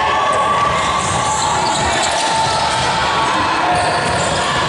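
Basketball game play in a large sports hall: the ball bouncing and players' footfalls on the court, with drawn-out sneaker squeaks.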